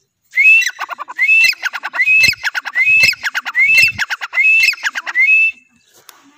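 Grey francolin (teetar) calling: about seven loud phrases in a row, each a rising whistled note followed by a quick falling run of short clipped notes, lasting about five seconds.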